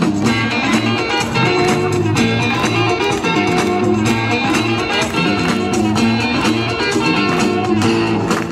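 Loud music with a steady beat, played over stage loudspeakers.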